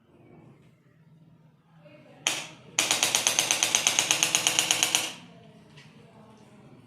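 Handheld electric percussion tool pulsing rapidly, about nine strokes a second for a little over two seconds. A short burst comes just before it starts.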